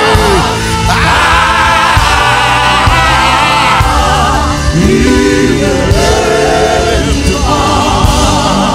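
Live gospel music: a male lead singer and backing vocalists singing over instrumental backing with a steady beat.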